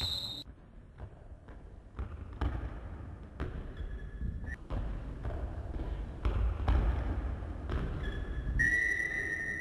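Scattered knocks and thuds in an echoing sports hall, between a whistle that cuts off just after the start and a referee's whistle blast lasting about a second near the end. A faint short squeak comes about four seconds in.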